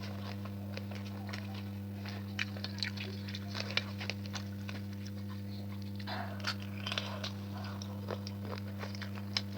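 Close-up wet chewing and lip-smacking of someone eating rice and curry, in many short irregular clicks, over a steady low electrical hum.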